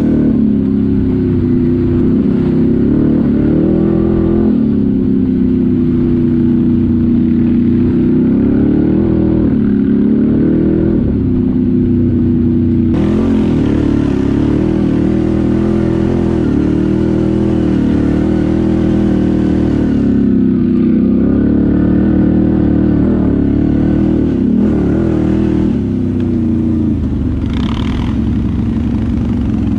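ATV engine running under changing throttle, its pitch rising and falling repeatedly as it speeds up and slows down.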